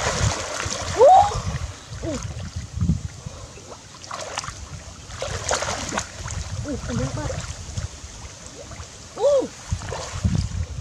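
Muddy canal water splashing and sloshing as a person swims and wades through it. A few short rising-and-falling cries come through about a second in, at two seconds and again past nine seconds.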